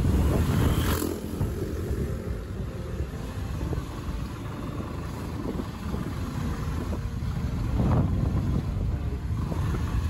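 A vehicle running on the road: steady engine and road rumble with wind noise, swelling louder about a second in and again near the eighth second.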